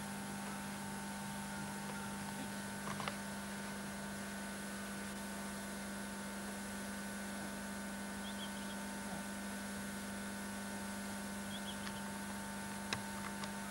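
Steady electrical hum in the recording, several constant tones held without change, with a brief faint knock about three seconds in and another near the end.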